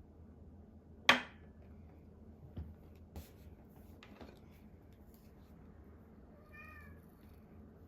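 A sharp tap about a second in and a couple of softer knocks, then a short, quiet cat meow near the end.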